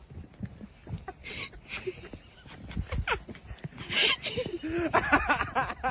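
People's voices with laughter and scattered knocks and rustles.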